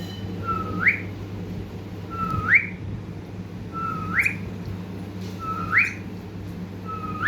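Pet parrot whistling the same two-part call about five times: a short held note that jumps sharply upward at the end, repeated at an even pace. A steady low hum runs underneath.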